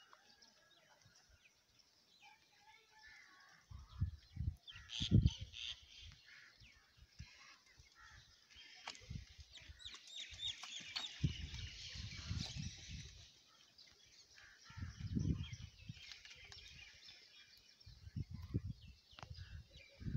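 Outdoor ambience: gusts of wind rumbling on the microphone in uneven bursts, with small birds chirping in the background, busiest about halfway through.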